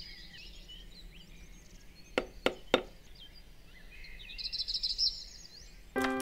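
Three quick knocks on a door about two seconds in, over birds chirping in the background. Music starts again near the end.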